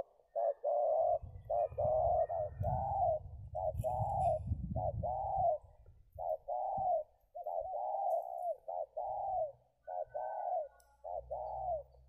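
Spotted dove (tekukur) cooing in a steady run of rolling coos, short notes alternating with longer arched ones, with a low rumble underneath during the first half.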